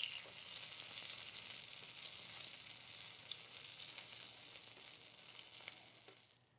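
Caramelized onions sizzling faintly in bacon fat on a cast-iron griddle while metal tongs turn them, with scattered small crackles. The sizzle fades out near the end.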